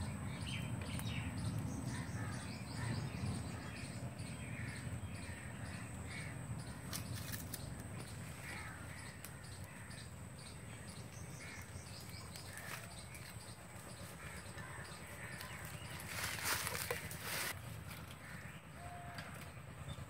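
Crows cawing again and again, with a steady high-pitched whine underneath. About sixteen seconds in comes a brief loud burst of noise.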